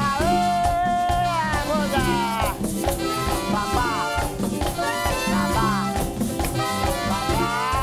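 A live Latin band playing dance music with a steady beat: trumpets, congas and bongos, bass guitar and drum kit.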